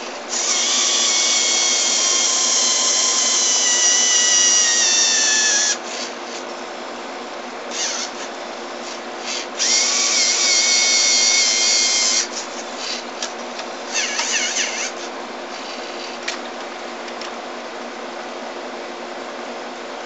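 Small Lego Mindstorms electric motors whirring through plastic gear trains as the robotic CD-changer arm moves. A long run of about five seconds slows and drops in pitch at its end, then shorter runs follow near the middle and about three-quarters of the way in, with small clicks between them, over a steady low hum.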